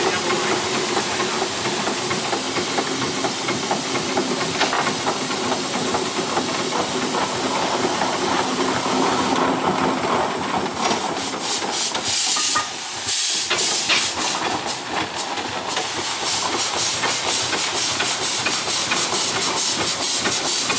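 Steam roller running under steam: a steady hiss of steam over the engine's working. A brief louder burst comes about twelve seconds in, and in the last few seconds the exhaust beats come as fast, regular chuffs as it moves off.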